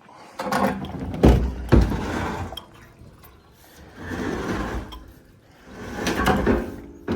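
Scrap metal being handled and loaded into a van: two heavy thuds about a second in, with scraping and clattering around them and again later.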